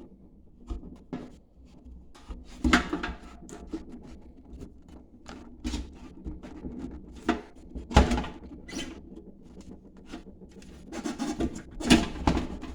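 Cables and parts being crammed into a .50 cal ammo can: irregular clatter, rustling and knocks, with three louder knocks spread through.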